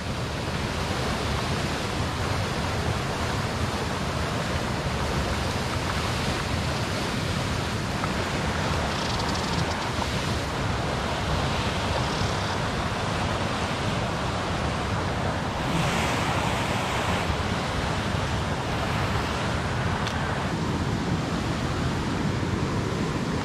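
Steady rushing of flowing river water, an even hiss with no breaks, swelling slightly louder for a second or two about two-thirds of the way through.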